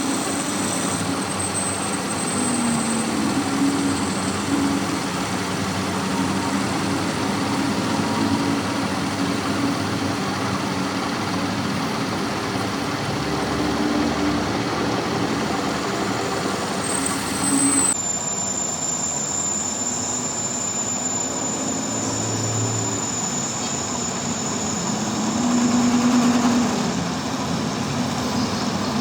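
Workshop machinery running steadily, a continuous mechanical drone that changes abruptly about eighteen seconds in.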